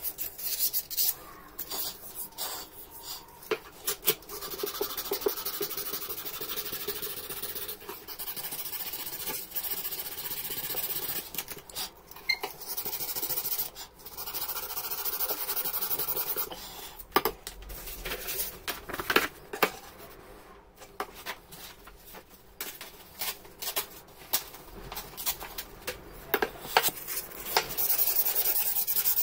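Sandpaper scraping over a rusty steel hammer head, sanding the rust off: a rasping hiss, sometimes in long steady stretches and sometimes in short strokes, with many sharp clicks and knocks between them.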